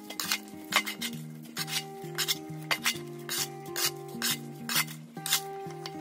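Metal shovel scraping and scooping wet mud and debris off the floor of a concrete drainage ditch, in a run of short, irregular strokes. Background music with held, stepping notes plays underneath.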